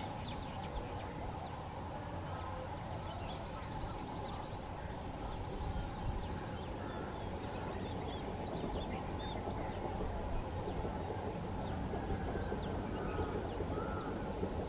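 Small birds chirping and trilling in short calls over a steady low rumble with a faint hum, the rumble growing slightly louder over the last few seconds.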